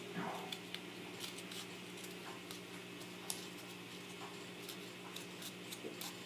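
Faint, scattered light ticks and clicks from small handling over a steady low hum.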